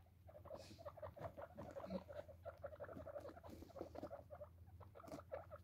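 Guinea pigs making faint, quick little sounds, many short ticks in close succession, as they move and nose through wood-pellet bedding.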